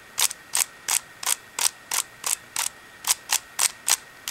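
Shengshou Mr. M magnetic 3x3 speedcube being turned layer by layer: a steady run of sharp plastic clacks, about three a second, as the magnets snap each turn into place. The cube is pretty noisy.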